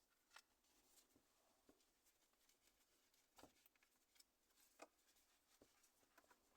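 Near silence: faint, scattered rustles and clicks as an adhesive sun visor strip is handled in the car.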